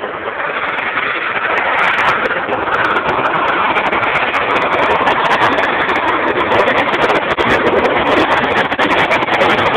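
Harrier jump jet's Rolls-Royce Pegasus turbofan: loud, steady jet noise that swells over the first two seconds and then holds, crackling throughout.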